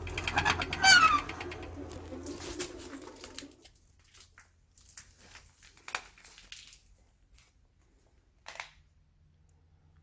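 A cat meowing: one loud cry about a second in that falls in pitch, over a low hum. After about four seconds the sound drops to a faint hush broken by scattered soft clicks and scuffs.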